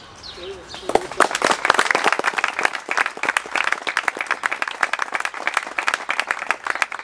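A group of people applauding with hand claps that start about a second in and keep up as a dense, irregular patter.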